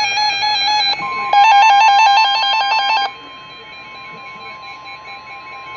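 Emergency alert tones from a weather radio broadcast: a buzzing electronic tone until about a second in, then a steady single-pitch alarm tone, the NOAA Weather Radio warning alarm that comes before a warning message. For about two seconds a loud, rapid electronic beeping sounds over the steady tone.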